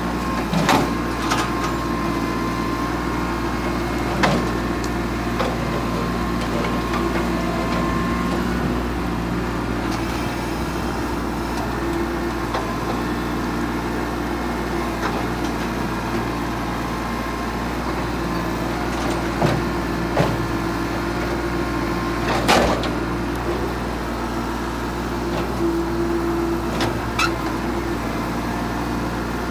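New Holland compact tractor's diesel engine running steadily while the front loader works, with a few sharp knocks, the loudest about two-thirds of the way through.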